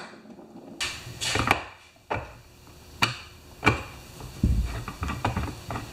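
Hand tools being handled on a wooden workbench: a string of sharp clicks and knocks as a screwdriver is picked up and set down, with one duller thump about four and a half seconds in.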